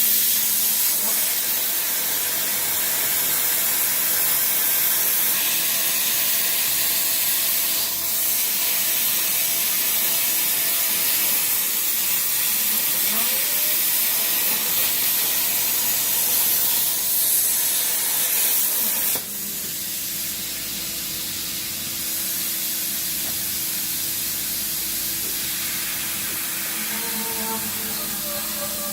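CNC plasma cutting torch cutting knife blanks: a loud, steady hiss of the arc and air that starts suddenly and drops somewhat about two-thirds of the way through, over a steady low hum.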